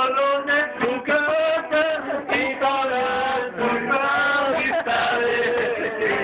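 People singing a song together, male voices prominent, with long held notes over acoustic guitar accompaniment.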